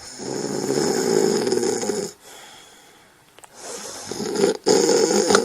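Snoring: a loud snore about two seconds long, a quieter stretch, then a second snore building from about four seconds in and loudest near the end.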